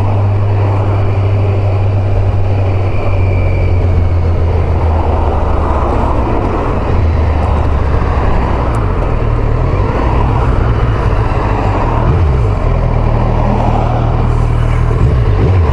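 Kawasaki Z900's inline-four engine running on the move, under heavy wind rush on the microphone. The engine note dips and rises a couple of times near the end.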